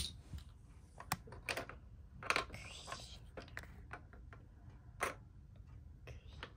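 Plastic clicks and knocks from a toy whack-a-mole game as small mole pegs are fitted into the holes of its plastic board: several scattered clicks, the loudest about two seconds in and again about five seconds in.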